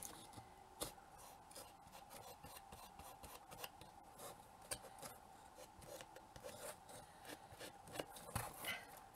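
Faint rubbing and scuffing of fingertips working Rub 'n Buff wax paste onto a miniature fireplace piece, with a few light knocks as the piece is shifted on the cutting mat.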